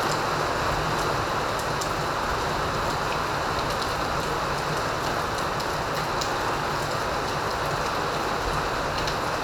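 Steady rain falling, an even hiss with scattered sharp drop ticks.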